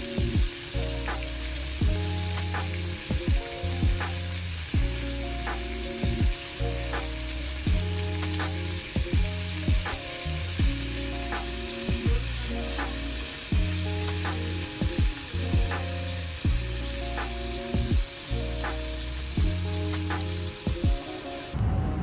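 Thin slices of beef sizzling steadily in hot oil in a frying pan while being turned with chopsticks, over background music with repeating bass notes and a regular beat. The sizzle cuts off shortly before the end.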